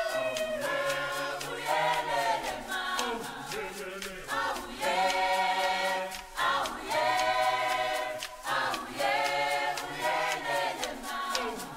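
A choir singing in harmony, in held phrases, over a steady ticking percussion beat: background music.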